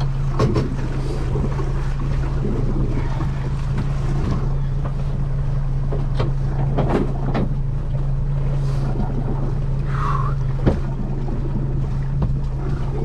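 Boat engine running steadily, a constant low drone, with wind noise on the microphone and a few short knocks.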